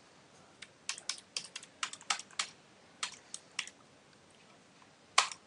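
Computer keyboard keystrokes: about a dozen irregular clicks over roughly three seconds, then a pause and a single keystroke near the end.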